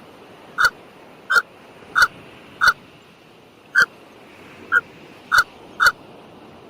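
An animal giving short, sharp calls, about nine of them at a regular pace of roughly one every two-thirds of a second, over a steady background hiss.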